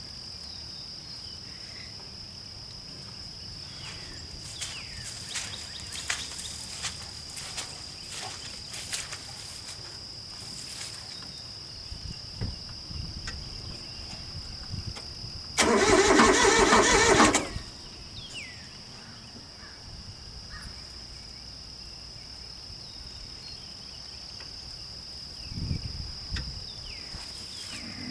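An engine's starter motor cranks once for about two seconds, powered by a portable jump starter, and stops without the engine catching. A steady high insect shrill runs throughout, with scattered light clicks in the first half.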